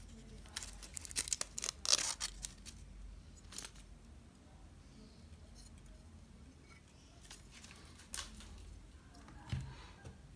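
Plastic crackles and clicks from handling a white Apple power adapter's UK plug head and peeling its protective film, densest in the first two seconds. Scattered single clicks follow, and there is a soft knock near the end.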